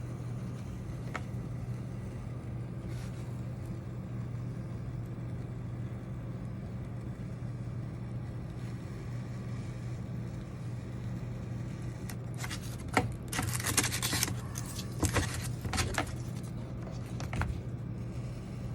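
A steady low hum, with a cluster of sharp clicks and rustling scrapes about two-thirds of the way in as foam pieces and tools are handled.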